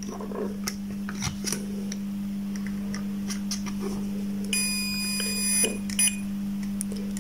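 Steady low electrical hum with light clicks of multimeter probe tips on a circuit board. About four and a half seconds in, a high-pitched beep lasting about a second: a digital multimeter's continuity beeper, sounding as the probes bridge a connected path on the board.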